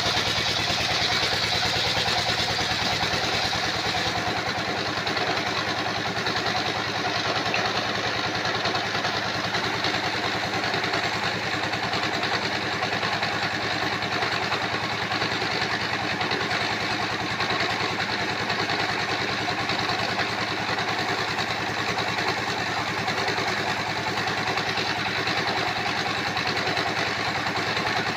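Sawmill engine running steadily with an even, rapid beat. A higher hiss over it eases about four seconds in.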